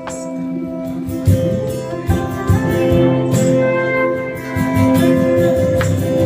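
Live band playing an instrumental break of a pop song, with acoustic guitar and percussion. There is no singing.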